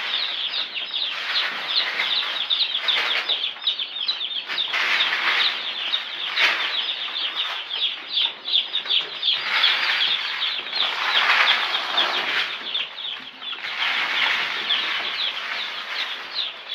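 A brood of day-old Cobb 500 broiler chicks peeping constantly, many high, short, falling chirps overlapping, with spells of rustling noise coming and going.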